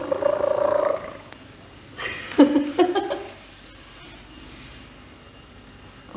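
A woman's wordless vocal sounds: a long drawn-out cry for the first second, then a few short, sharp, louder cries about two seconds in.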